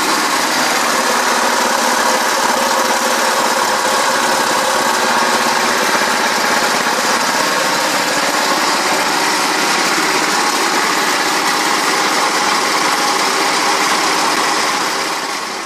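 A 7 HP Thornado go-kart engine idling steadily, with no revving, fading away near the end.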